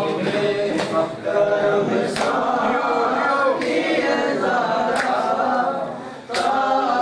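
Men's group chanting a noha lament in unison. Sharp collective chest-beating (matam) slaps fall together about every second and a half.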